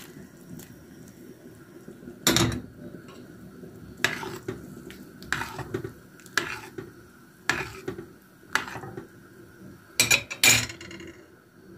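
Metal ladle stirring fish soup in a stainless steel pot, knocking and clinking against the pot's sides about eight times, roughly a second or so apart, over a faint steady hum.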